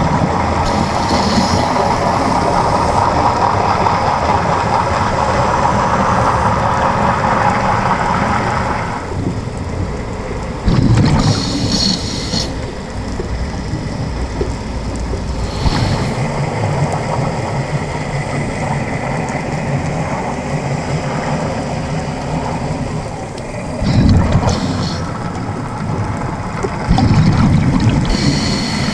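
Underwater sound picked up through a camera housing: a steady rumbling hiss with several louder bubbling bursts from scuba divers' exhaled bubbles.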